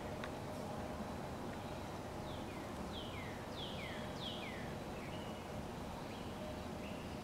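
A bird singing a quick run of falling notes, in high-then-low pairs, starting about two seconds in, over steady outdoor background noise.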